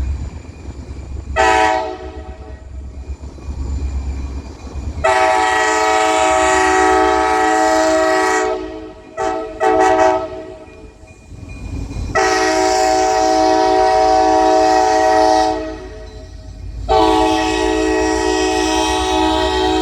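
Kansas City Southern locomotive's multi-chime air horn sounding a horn salute: a short blast about a second in, then three long chord blasts with a few quick short toots between the first two. A low locomotive rumble runs underneath.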